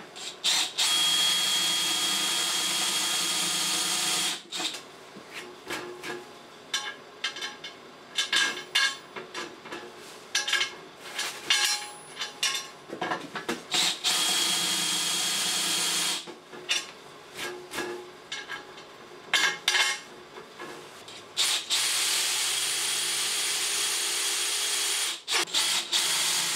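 DeWalt cordless drill with a countersink bit countersinking holes in aluminium chequer plate. The motor runs steadily for a few seconds at a time, with stretches of short stop-start bursts in between.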